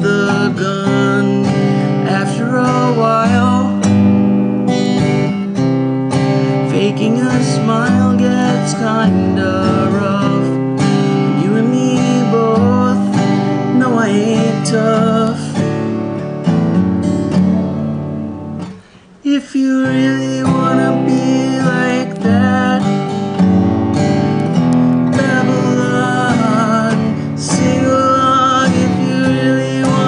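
Acoustic guitar strummed with a man singing over it, a solo live performance; the playing breaks off briefly about two-thirds of the way through, then carries on.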